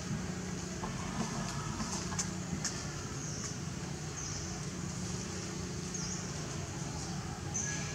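Steady low background rumble with short high-pitched chirps every second or so and a few faint clicks.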